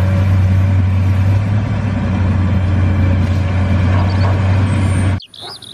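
Komatsu PC200 crawler excavator's diesel engine running as the excavator digs soil, a loud steady deep hum, cutting off abruptly about five seconds in.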